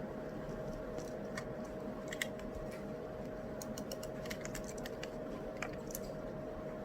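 Irregular computer-keyboard typing, scattered key clicks coming in small clusters, over a steady background hum.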